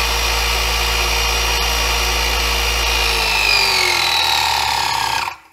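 Electric hydraulic pump motor running steadily while its button is held, pumping a 25-ton hydraulic clamp up toward its full 10,000 PSI. Its whine drops a little in pitch near the end, and the pump cuts off suddenly about five seconds in, once it is up to pressure.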